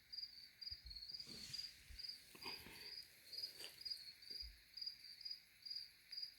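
Crickets chirping in a steady, even rhythm of about two high chirps a second, with a few faint low thumps.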